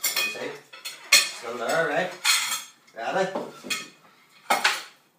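Tableware being handled on a table: dishes, cutlery and a bottle clattering, with several sharp clinks.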